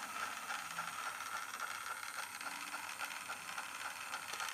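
UNISEF Z-10 stereo cassette player's tape mechanism running with a steady whir of gears, as in fast-wind of the cassette.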